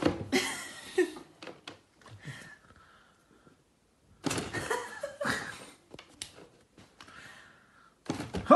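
Knocks and scrapes of a cardboard box as a cat shifts about inside it, with a person's soft laughter in between.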